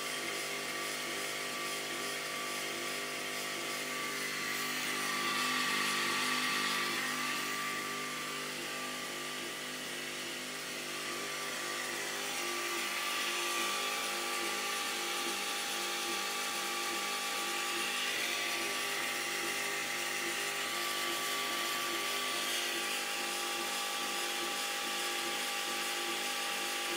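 Woxcker JL7 10W diode laser engraver running a job: a steady hum from its air pump and the cooling fan in the laser head, with a motor whine that rises and falls in pitch several times as the head travels.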